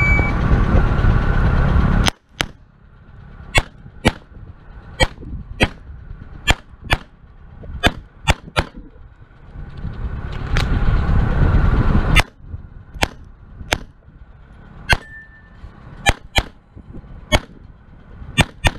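Shot timer start beep, then a semi-automatic pistol fired about eighteen times over a timed course of fire, the shots mostly in quick pairs, with a few seconds' pause near the middle. A rushing noise comes before the first shot.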